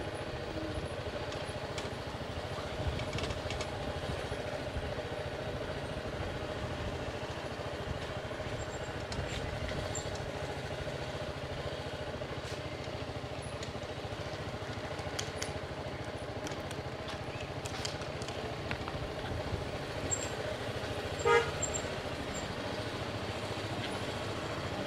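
Road traffic: a steady engine rumble, with one short vehicle horn toot near the end.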